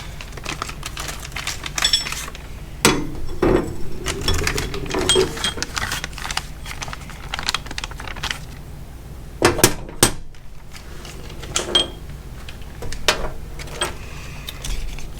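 Small metal air blow gun nozzle extensions and their packaging being handled: irregular clicks, knocks and light metallic clinks, with a few sharper knocks.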